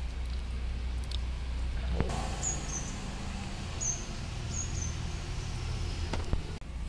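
A small bird chirping several short, high notes in the background, over a steady low rumble. There are a few soft clicks from hands handling a wet fish.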